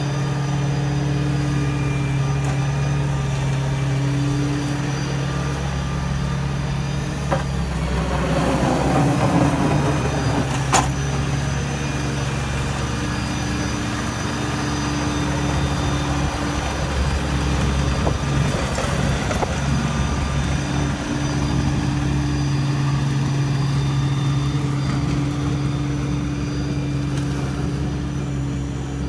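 Massey Ferguson GC2300 compact tractor's diesel engine running steadily while it plows slush. About eight to eleven seconds in the sound grows rougher and louder, with one sharp knock.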